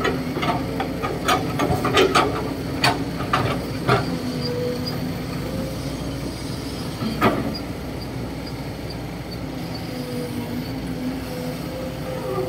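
Kobelco SK200-8 hydraulic excavator's diesel engine running steadily under digging load, with a quick run of sharp clanks and knocks from the bucket working the dirt in the first four seconds and one more about seven seconds in.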